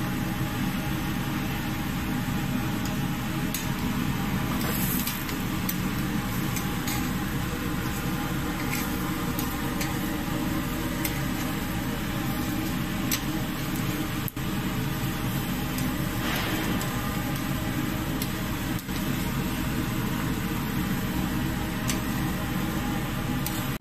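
Vegetables sizzling on a hot grill grate over a steady, fan-like mechanical hum, with a few sharp clicks of metal tongs against the grate as the pieces are turned.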